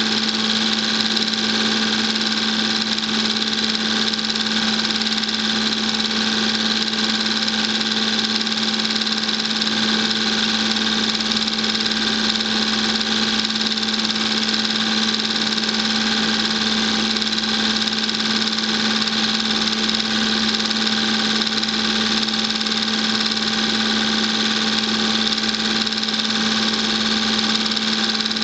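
Film projector running: a steady, unchanging motor hum and whir with no other sound.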